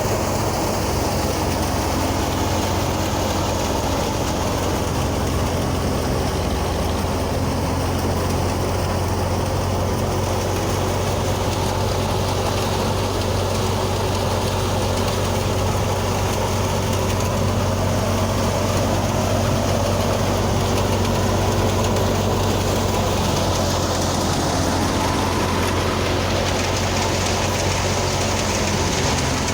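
Harvesting machine's engine running steadily, a continuous even drone with no change in speed.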